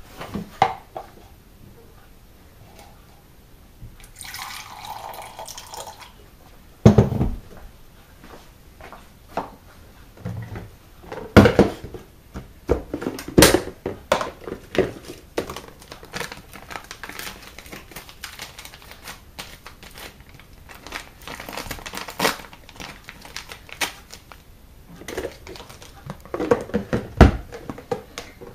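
Clatter of plastic tubs and medicine bottles being picked up and set down on a kitchen counter: many sharp clicks and knocks, with one loud thud about seven seconds in. About four seconds in there is a short burst of running tap water lasting about two seconds.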